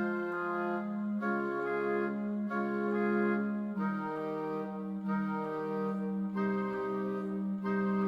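Slow music played back by MuseScore 4's Muse Sounds virtual instruments: sustained, organ-like chords with no percussion, moving to a new chord about every second and a quarter.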